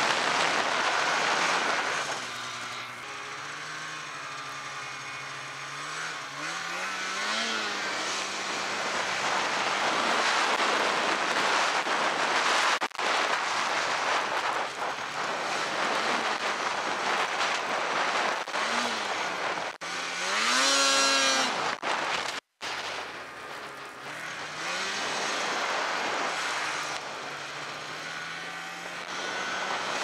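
Snowmobile engine running under throttle, its pitch repeatedly rising and falling as the rider works the throttle, over a steady rush of wind and snow. The pitch climbs to its loudest about two-thirds through, just before a brief break in the sound.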